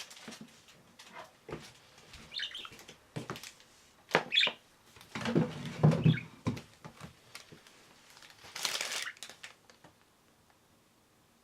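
Pet budgerigars moving about and flapping, with irregular scuffles, clicks and knocks, louder knocks around the middle, and a short flurry of wing flapping.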